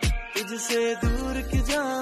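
Background music: a Hindi-language pop song with a sung vocal over a beat of deep, falling kick drums, with a sustained bass coming in about halfway.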